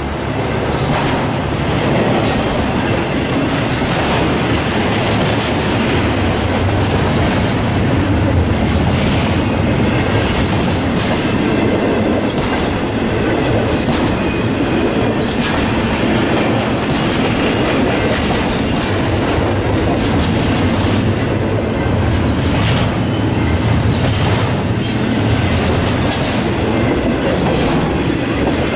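Intermodal freight train's well cars and trailer-carrying flatcars rolling past, a steady loud rumble of steel wheels on rail with occasional clicks.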